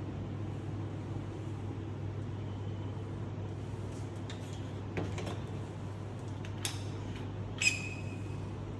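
Open vending machine's cabinet being handled: a few light knocks, ending in a brief metallic clink near the end, over a steady low hum.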